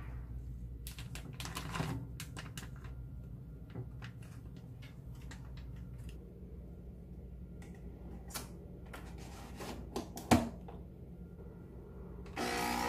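Irregular light clicks and taps of small objects being handled over a low steady hum, with one louder knock about ten seconds in. Music starts just before the end.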